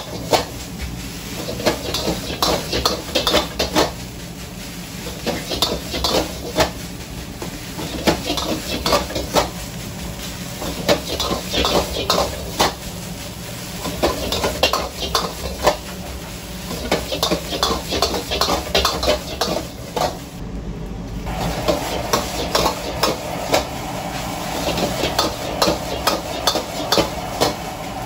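Metal wok ladle scraping and clanking rapidly and rhythmically against a steel wok as fried rice is stir-fried over high heat, with the rice sizzling and the gas wok burner's steady low rush underneath. The clanking breaks off briefly a little past three-quarters through.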